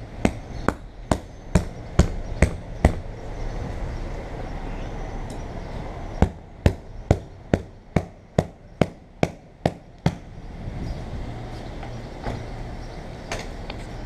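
A new windshield being knocked down to seat it in its rubber gasket: sharp knocks, about two and a half a second, in two runs of eight to ten with a pause between, then a couple of single knocks near the end.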